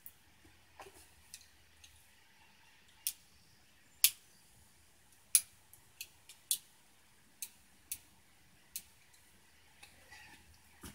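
Sharp metallic clicks of an 1889 Bodeo revolver being reloaded through its loading gate: a live cartridge going back into the cylinder and the cylinder being clicked round. About ten clicks at uneven spacing, the loudest about four seconds in.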